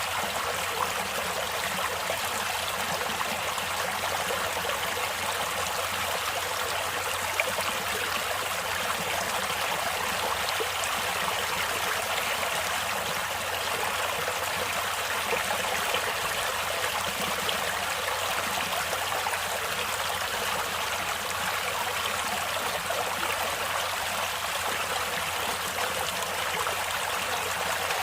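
Water of a stream or river flowing steadily over rocks, a constant rushing with fine splashing and trickling.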